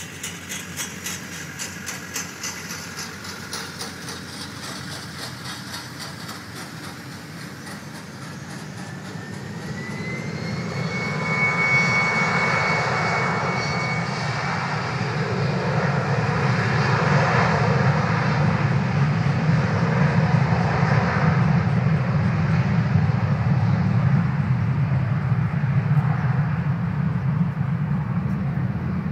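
Jet airliner's engines at a distance: a low hum, then about ten seconds in a rising whine as they spool up to takeoff power. A loud, steady jet rumble follows for the rest, the sound of the takeoff run.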